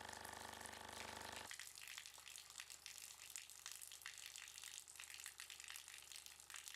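A faint, steady electric hum cuts off suddenly about a second and a half in, leaving the soft crackle and trickle of running water.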